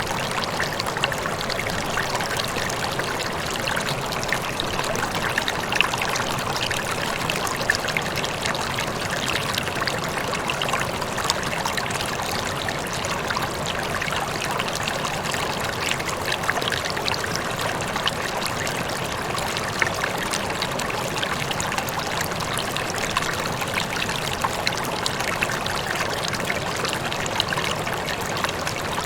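Rippling, trickling water flowing steadily, with many small splashy ticks from the moving surface and no change in level.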